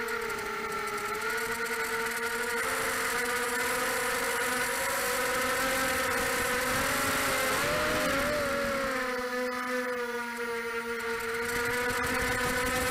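Detroit Multirotor Pitbull 250 FPV racing quadcopter's brushless motors and propellers whining, heard from its onboard camera. A steady multi-tone buzz whose pitch drifts up and down with throttle and wavers most about halfway through.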